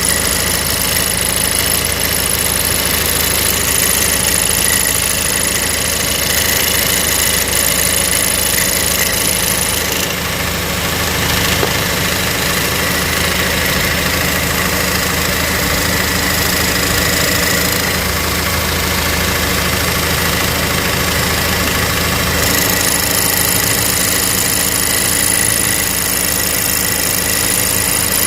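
Cadillac ATS engine idling steadily, with a rattling vibration that is typical of a broken exhaust bracket by the oil filter, the fault the owner found. The high-pitched part of the sound drops away about ten seconds in and comes back near the end.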